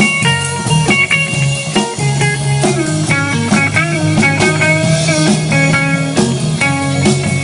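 Live rock band playing: electric guitar notes over a steady drum beat.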